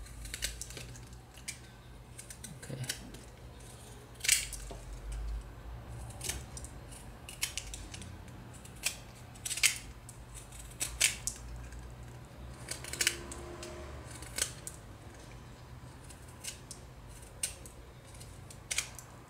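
Utility knife shaving the broken end of a wooden spatula handle: short, sharp, irregular paring strokes, a dozen or so, over a faint steady hum. The wood is being whittled to round off a sharp corner.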